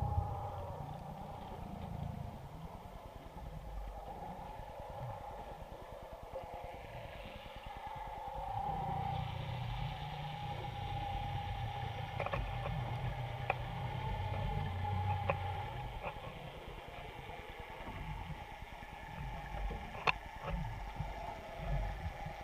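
Muffled low rumble and steady hum of a clam dredge's machinery heard underwater, growing louder in the middle, with a few sharp clicks and one louder click near the end.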